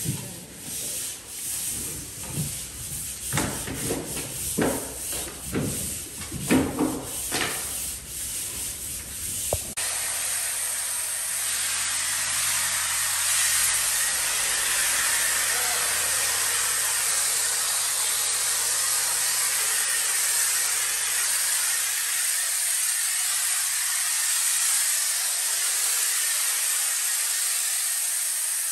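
Pole sander rubbing back and forth over a drywall ceiling in irregular strokes. About ten seconds in, it gives way abruptly to the steady hiss of a hose-fed spray gun spraying the drywall, with a faint low hum beneath it.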